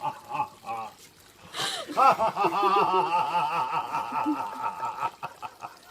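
People laughing: a brief snicker near the start, then about a second in a fit of repeated giggling that runs for roughly three seconds and fades.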